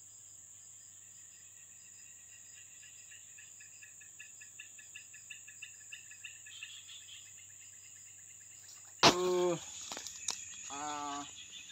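Insects chirping: a steady high drone with evenly pulsed chirps over it. About nine seconds in comes a loud, sudden vocal shout falling in pitch, then a short sharp click and a few more brief vocal sounds.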